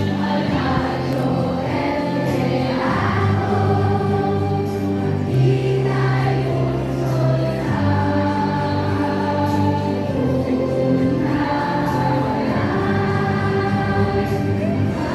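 A choir singing with musical accompaniment, in long held notes over a slowly changing bass line.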